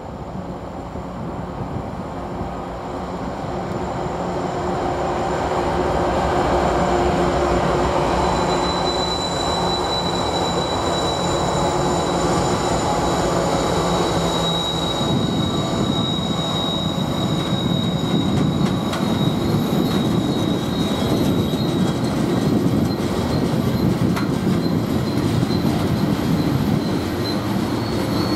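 Norfolk Southern diesel freight train passing on a tight curve: the locomotives' engines grow louder over the first several seconds, then about halfway through the engine drone gives way to the rumble of rolling cars. A high, steady wheel-flange squeal from the curve rings out for several seconds through the middle.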